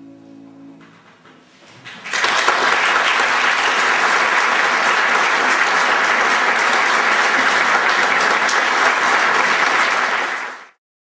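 The last note of the clarinet and piano piece fades away, and after a short pause a concert audience breaks into steady applause, which cuts off abruptly near the end.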